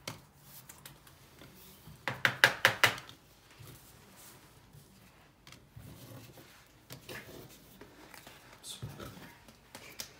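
Trading cards and card boxes being handled and moved on a table: scattered light rustles and taps, with a quick run of about five sharp clicks around two seconds in.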